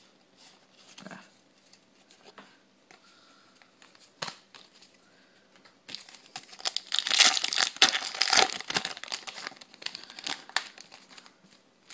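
Light scattered ticks of cards being handled, then about six seconds in a foil Yu-Gi-Oh booster pack wrapper crinkles and tears for several seconds as the pack is opened. The crinkling is the loudest sound.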